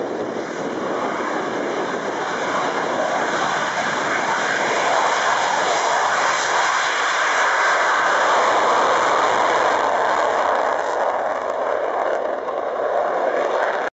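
F-16 Fighting Falcon's Pratt & Whitney F100 turbofan jet engine at high power on the runway: a loud, even jet roar that swells through the first half and eases slightly near the end.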